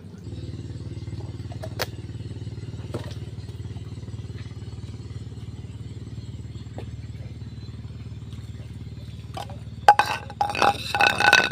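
A small engine running steadily with a low, even rumble, with a couple of sharp clicks. Near the end, loud bumps and rustling on the microphone as the phone is moved.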